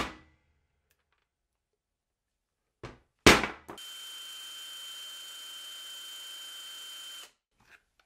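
Earthquake XT cordless impact wrench with a brushed DC motor, run free with no load for about three and a half seconds: a steady whine that starts after a loud knock and cuts off sharply. It is spinning at about 1,636 rpm, the same free speed as before, so the battery is not the cause of its lost torque. A sharp knock comes right at the start.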